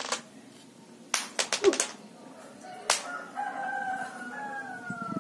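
A rooster crowing, one long call of about two seconds that falls slightly in pitch near the end. Before it, a quick run of sharp clicks about a second in and a single click just before the call begins.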